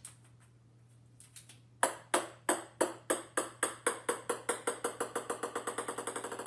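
Small ball bouncing on a hard wooden floor. The bounces begin about two seconds in as sharp ringing ticks that come quicker and quicker, closing into a rapid rattle as the ball comes to rest.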